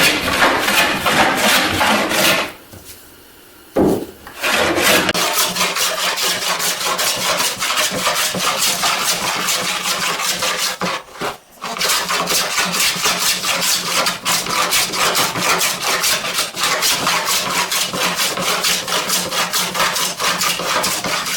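Large hand plane shaving along a glued-up wooden board panel, a continuous rasping run of strokes with the blade set very shallow. It stops briefly about three seconds in and again about eleven seconds in.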